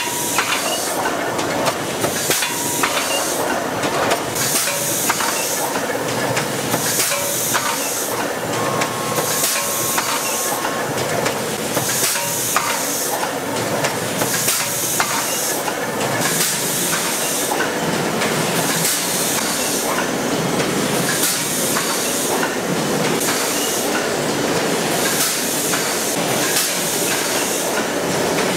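Automated ice cream cup filling and lidding line running: a steady mechanical clatter with short hisses of air that recur every couple of seconds.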